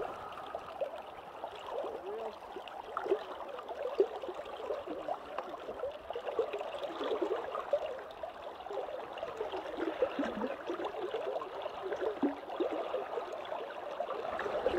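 River water gurgling and trickling steadily around the drifting boat, a busy babble of small bubbling splashes.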